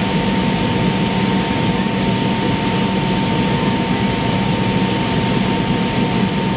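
Cabin noise of a McDonnell Douglas MD-88 climbing after takeoff: the steady roar of its rear-mounted Pratt & Whitney JT8D turbofans, with a constant thin whine running through it.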